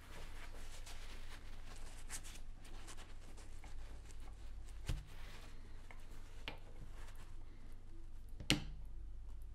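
Faint handling noise as a paper shop towel rustles over a power steering pump and a metal line fitting is handled against it, with a knock about halfway and a sharp click near the end as the fitting is pressed onto the pump's port. A steady low hum lies underneath.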